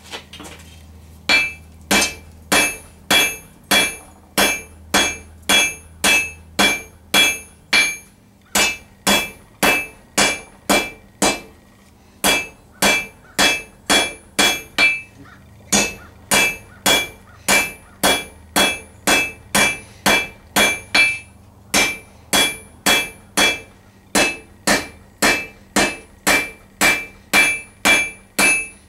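Blacksmith's hammer striking a hot 1 cm round steel bar on an anvil, drawing out a taper. The blows come at about two a second, each with a bright metallic ring, in runs broken by short pauses.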